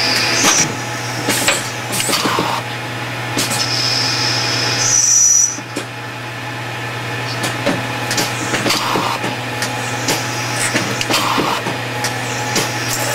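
Hardinge chucking lathe running its automatic cycle, turning brass bar stock into shoulder bushings under flood coolant: a steady machine hum with coolant spray and repeated clicks and knocks of the tooling. A high steady whine sounds briefly at the start and again for about two seconds around four to five seconds in.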